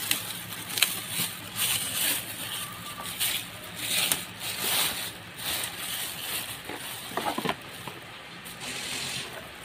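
Plastic wrapping rustling and crinkling, with the cardboard box scraping, as a flat-screen TV is worked out of its packaging. There is a sharp click under a second in.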